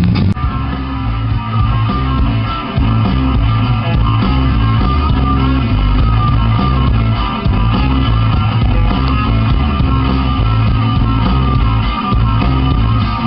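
Rock music with guitar played over an FM radio broadcast picked up at long distance.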